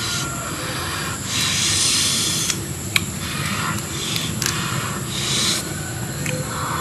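Cooked lobster shells being cracked and peeled apart by hand: rustling crackles in bursts of about a second, with a sharp snap of shell about halfway through and a smaller one a little later.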